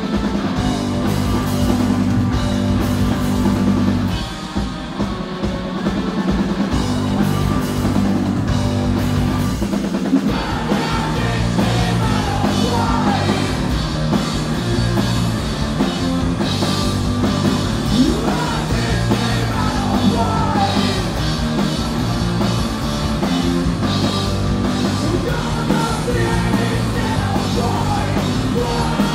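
Rock band playing live and loud: electric guitars, bass guitar and drum kit.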